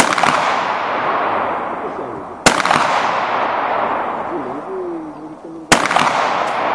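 Three shotgun shots, about two and a half and then three seconds apart, each followed by a long echoing tail.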